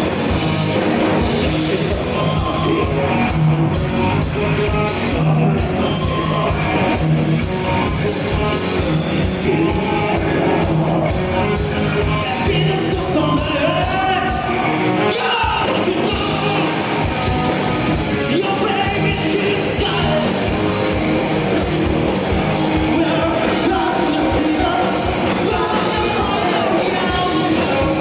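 Live rock band playing loud with distorted guitars, bass and drums, and a singer's shouted vocals over the top, heard in the echo of a concert hall.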